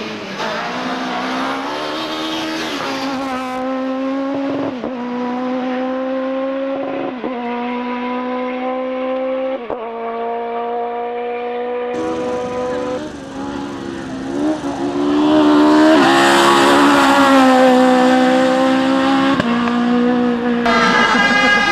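Race car engine at full throttle, climbing in pitch and dropping sharply at each upshift about every two and a half seconds. Near the end a louder car comes by close, running hard with quicker gear changes.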